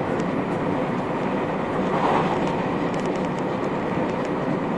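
Running noise inside a JR West 221 series electric multiple unit, recorded in motor car KuMoHa 221-70: a steady rumble of wheels on rail and the car's running gear while the train is under way. There is a brief swell in the noise about two seconds in.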